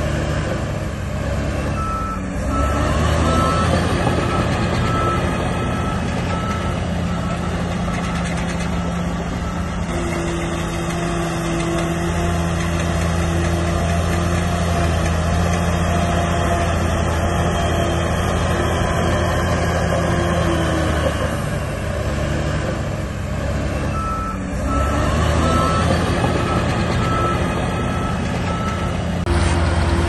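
Heavy diesel earthmoving machinery running steadily, with a reversing alarm beeping at an even pace from about two seconds in to about ten seconds, and again near the end.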